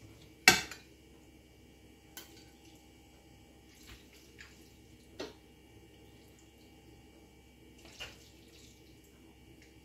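A ceramic plate knocking loudly once as it is picked up off the counter board, then a few light clinks and scrapes as creamy pasta is served from the frying pan onto the plate.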